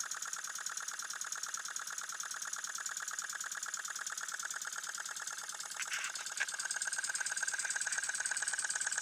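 Small model single-cylinder piston engine with a brass flywheel running on low-pressure gas fed through a hose: a fast, steady clatter of strokes. About six seconds in come a couple of sharp clicks, and then it runs a little louder.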